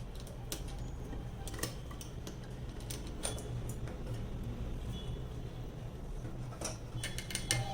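Electric sewing machine's steady low motor hum with scattered light clicks from its mechanism. Background music starts right at the end.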